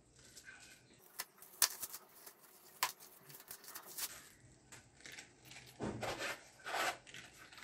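Plastic-wrapped hard sunglasses case being unwrapped and handled: a few sharp clicks and taps in the first three seconds, then plastic wrap crinkling near the end.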